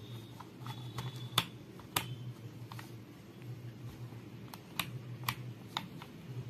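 Scattered light clicks and taps of hands handling and setting down the plastic housing of a battery emergency light, over a faint low hum.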